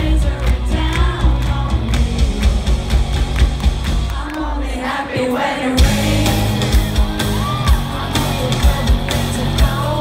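Live rock band playing with a woman singing lead. About four seconds in, the bass and drums drop away for a short break. About six seconds in, the full band crashes back in with heavy drum hits.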